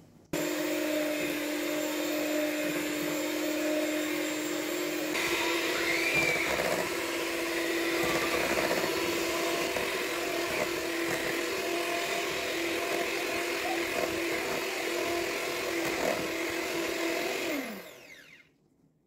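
Kambrook electric hand mixer switched on and running steadily, its beaters whirring through pancake batter in a stainless steel bowl. The motor pitch steps up a little about five seconds in, then the motor winds down with a falling tone and stops near the end.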